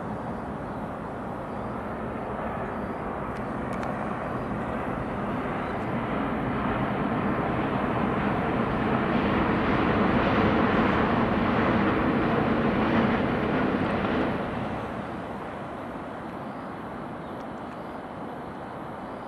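A distant passing vehicle: a wide rumbling rush that swells slowly, peaks over a few seconds, then falls away fairly quickly about fourteen seconds in to a steady background hum.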